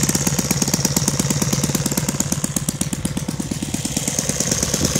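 Saito FA-180 four-stroke model airplane engine, converted to run on gasoline with electronic spark ignition, idling with a rapid, even beat while turning an APC 18x6 wide propeller. The idle settles at around 2,000 rpm and is briefly quieter around the middle.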